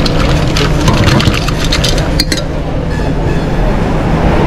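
Busy restaurant kitchen noise: a steady low roar with clinks and clatter of metal utensils against steel pans, thickest in the first couple of seconds.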